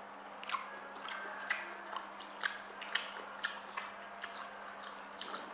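Close-up chewing of food, with irregular wet clicks and smacks of the mouth.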